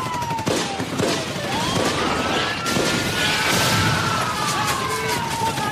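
Rapid gunfire and blasts, with sirens wailing in slow rising and falling glides over them.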